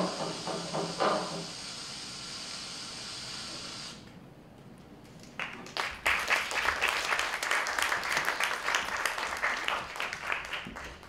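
A steady hiss from the performance's sound track cuts off about four seconds in. Audience applause starts about five and a half seconds in and runs on as the act ends.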